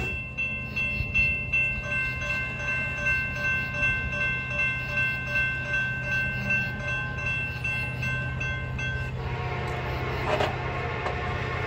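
Railroad grade-crossing bell ringing in a steady rhythm, about two strokes a second, while the crossing gates lower; it stops about nine seconds in, once the gate arm is down. A low hum carries on underneath, with a short burst of noise near the end.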